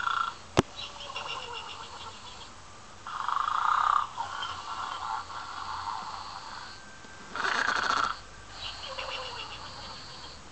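Toy pig playing its snoring sound: a loud snore about every four seconds, three in all, with softer breathy sounds between. A single sharp click comes about half a second in.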